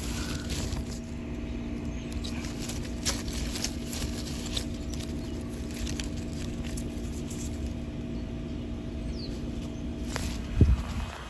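Late-2000s Bryant Preferred heat pump outdoor unit running in cool mode: a steady hum from its scroll compressor with fan noise underneath. Light clicks are scattered throughout, and a single thump comes near the end.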